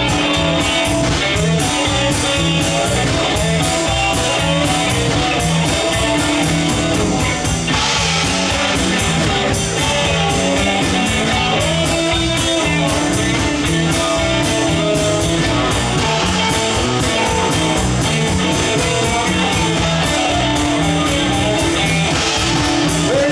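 Live rock band playing an instrumental break: electric guitars over electric bass and a drum kit keeping a steady, even beat.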